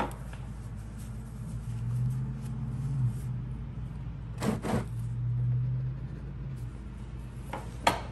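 Low mechanical hum that grows louder twice, for about a second and a half each time, with a short knock about four and a half seconds in and another near the end.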